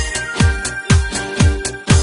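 Disco-style dance music with a steady four-on-the-floor kick drum about twice a second and held melody notes over it.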